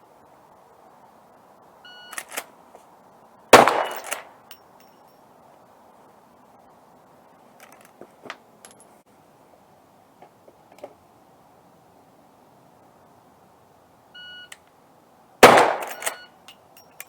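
Two rifle shots about twelve seconds apart, each a sharp crack with a ringing tail. Each shot comes about a second and a half after a short electronic beep. A few faint clicks fall between the shots.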